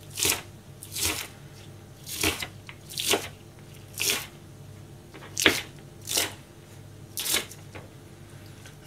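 Kitchen knife slicing a green onion (negi) into rings on a plastic cutting board, about eight cuts, roughly one a second.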